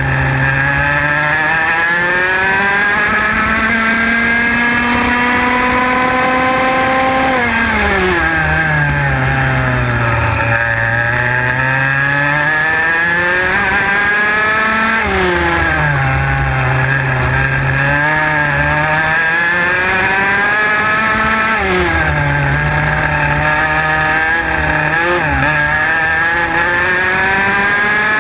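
IAME X30 125 cc two-stroke kart engine at racing pace, heard from onboard. Its pitch climbs steadily as it pulls on the straights and drops sharply as the driver lifts for the corners, about four times. The longest pull builds for about seven seconds before the first lift.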